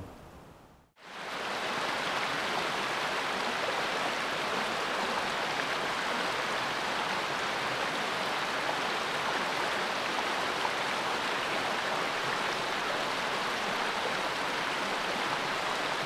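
Mill Creek's water rushing steadily over rocks and stones beneath the sawmill, fading in about a second in.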